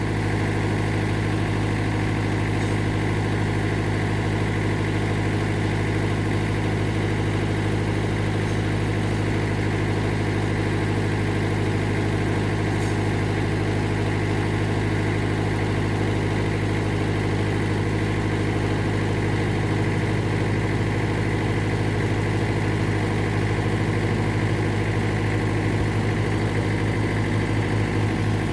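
Diesel engine of a Mitsubishi MS-series backhoe (excavator) idling, a steady, unchanging low hum.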